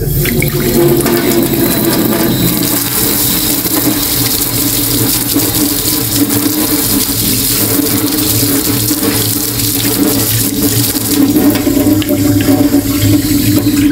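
Tap water running steadily into a stainless-steel sink, splashing over a wire whisk held in the stream to rinse it, with a steady low hum underneath.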